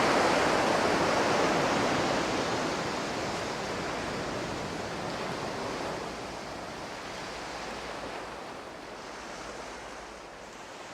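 Ocean surf washing in a steady rush, fading gradually.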